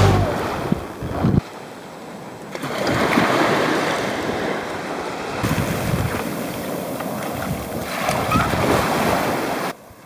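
Small waves washing up a sandy beach, with wind gusting on the microphone.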